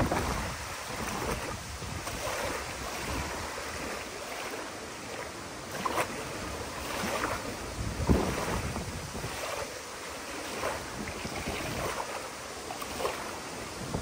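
Small wind-driven waves lapping and washing up on a sandy lake shore, with a splash every couple of seconds, the loudest about eight seconds in. Wind gusts rumble on the microphone throughout.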